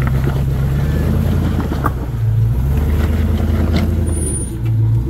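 A 4x4's engine running loudly at low revs and being revved up briefly about two seconds in and again near the end, with a couple of sharp knocks.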